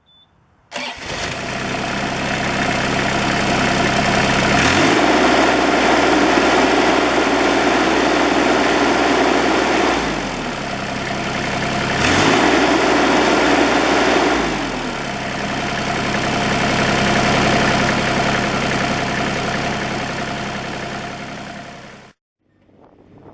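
Bobcat 328G mini excavator's Kubota diesel engine running at idle, revved up twice for a few seconds each time and dropping back to idle. It comes in suddenly about a second in and cuts off near the end.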